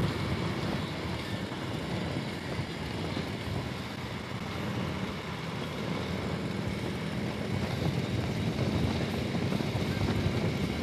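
Harley-Davidson Street Glide motorcycle riding along at a steady speed: an even engine drone mixed with road and wind noise.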